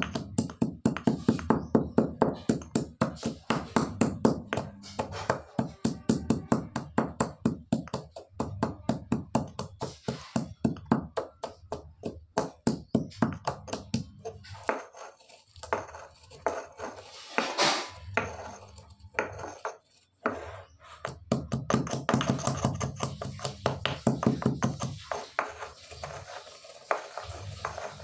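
Stone pestle pounding black peppercorns and cumin seeds in a small stone mortar, with rapid, even knocks of about four strokes a second and a couple of short breaks.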